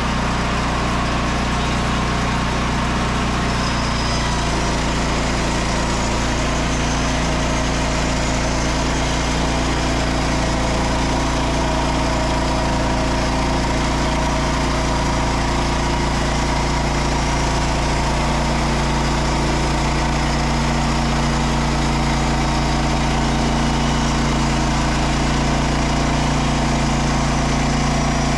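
Frontier OS27 portable band sawmill running: its small engine drives the 1.5-inch band blade steadily through a slab, and the engine note shifts about two-thirds of the way through.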